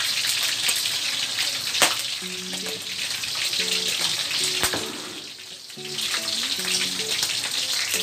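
Pork cubes frying in hot oil in a steel wok: a steady sizzle with a couple of sharp pops, dipping briefly about five seconds in.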